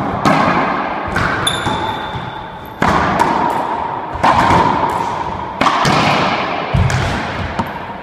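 Racquetball rally: sharp smacks of the ball off racquets and the court walls, about six in eight seconds, each ringing out in the enclosed court's echo. A short high squeak sounds about one and a half seconds in.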